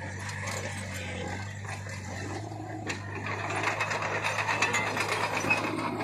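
Loaded dump trucks running with a steady low engine hum. About halfway through, a rapid metallic clatter starts and grows louder.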